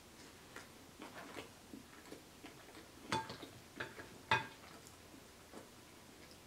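Close-miked chewing of cheesy bread, with small wet mouth clicks. About three seconds in, a wooden utensil knocks against a glass bowl three times with short ringing clinks while scooping pasta salad.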